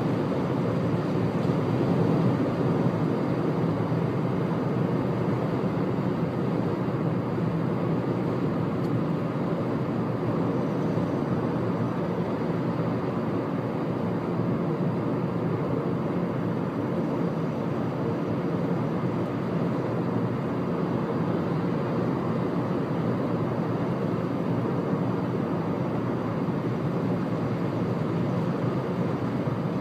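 Car driving at expressway speed: a steady mix of tyre, engine and wind noise heard from inside the cabin.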